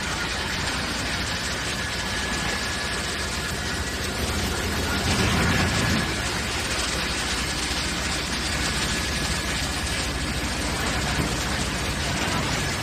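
Industrial wood chipper running steadily, a continuous mechanical drone with low hum and a thin steady whine, swelling slightly about five seconds in.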